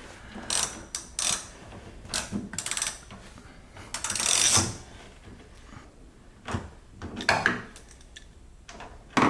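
Scattered clicks, knocks and rattles of hand tools working on the door-handle bolts inside a Nissan 350Z's door, with a longer scraping rustle about four seconds in and a sharp knock near the end.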